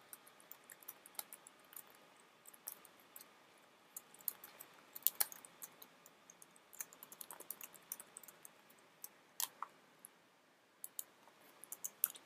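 Faint, irregular key clicks of a computer keyboard as a sentence is typed, with a short pause near the end.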